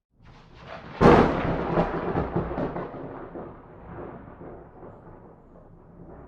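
A thunderclap. A low rumble builds, breaks into a sharp crack about a second in, then rumbles on and slowly fades away over several seconds.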